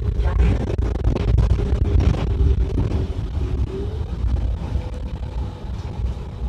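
City bus cabin noise: low engine and road rumble with a steady drivetrain hum that rises slightly in pitch about four seconds in.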